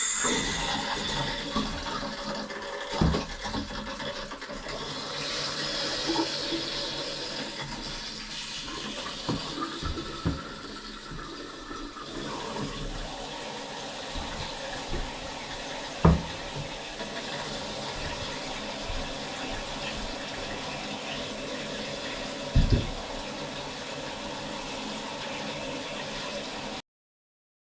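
Water rushing and filling in a bathroom fixture, with a few sharp knocks along the way, cutting off abruptly near the end.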